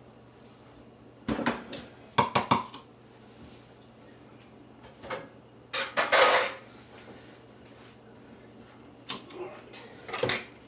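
Kitchen utensils clattering and knocking against dishes and bowls in several short bursts.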